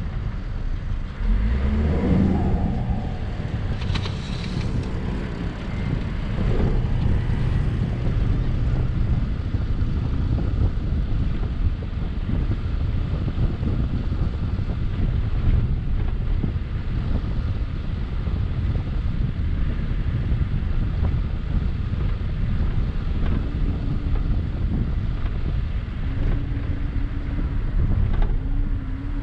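An all-wheel-drive Mazda CX-9 driving over soft desert sand: a steady low rumble of engine and tyres, with wind noise on the microphone. The engine note rises briefly about two seconds in.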